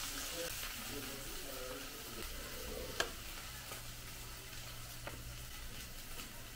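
Fish frying in hot mustard oil in a pan, sizzling steadily. Two sharp taps of a utensil on the pan come about three seconds in and again about five seconds in.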